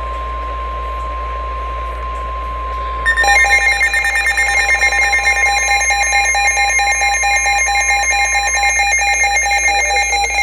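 NOAA Weather Radio 1050 Hz warning alarm tone, one steady high beep that stops a little before the end. About three seconds in, a ZoneGuard weather radio's own alarm starts over it, louder: a rapid warbling beep of several pitches. Here it is set off by an unrecognized message.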